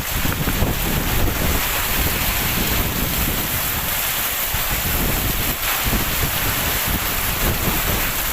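Heavy rain pouring down in strong wind, a steady dense hiss, with gusts buffeting the microphone as a low rumble.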